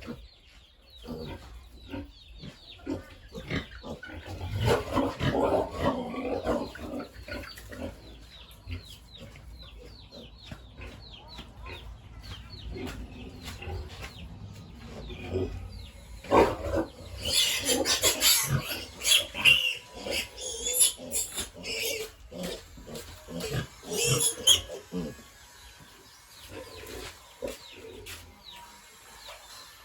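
Pigs vocalizing: short grunts throughout, with louder, shriller stretches about four to seven seconds in and again from about seventeen to twenty-five seconds.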